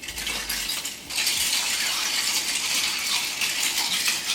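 Ice cubes clinking and rattling against the glass as a whiskey old fashioned is stirred. The clinking is lighter for the first second, then runs on steadily.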